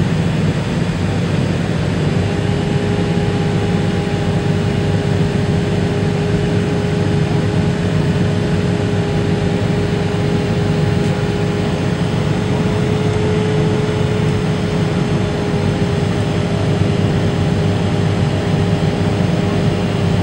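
Steady cabin roar of an MD-80 airliner on descent, air rushing over the fuselage with the engines running. A steady whine joins about two seconds in and holds.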